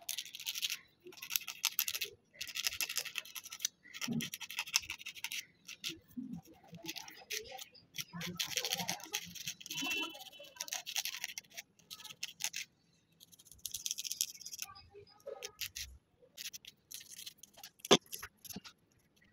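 Emery-board nail file rasping back and forth on plastic nail tips, shaping them to an almond shape: bouts of quick scratchy strokes with short pauses between, and a sharp click near the end.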